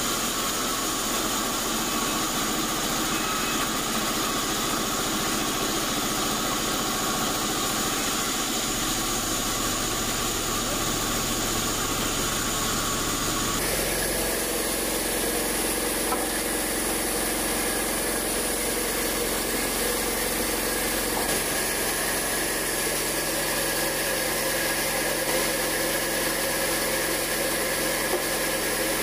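Large vertical sawmill band saw running steadily and cutting through old acacia timber on its carriage, a continuous machine hum with a steady whine. The tone of the hum shifts about halfway through.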